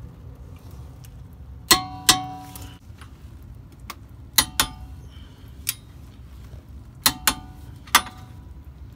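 Click-type torque wrench clicking as the brake caliper mount bolts reach the set 65 foot-pounds. About eight sharp metallic clicks with a short ring, several of them in quick pairs.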